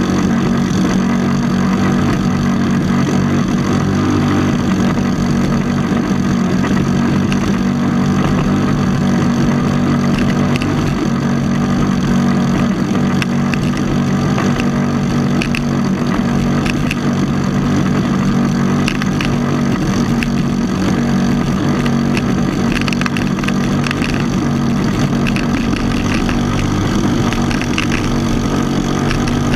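Small single-cylinder LONCIN gasoline engine driving a racing outrigger boat, running steadily at a constant pitch.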